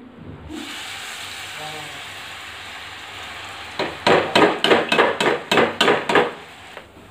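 Hot oil sizzling in a pan. About four seconds in comes a quick run of about ten metal taps, roughly four a second: a ladle striking a slotted metal spoon to push gram-flour batter through its holes into the oil as boondi.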